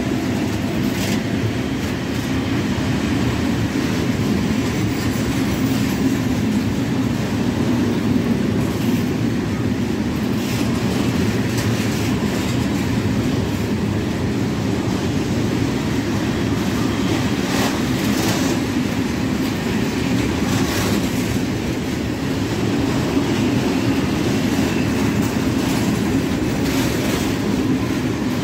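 Freight train of high-sided open gondola wagons passing at speed: a steady rumble of steel wheels on the rails, with the clack of wheels over rail joints every second or two.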